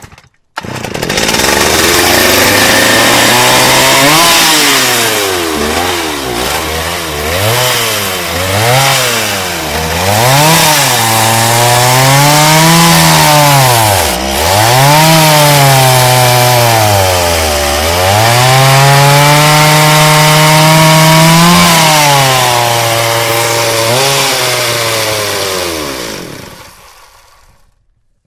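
Chainsaw engine revving up and down over and over, its pitch rising and falling with each rev over a loud buzzing rasp. It fades away near the end.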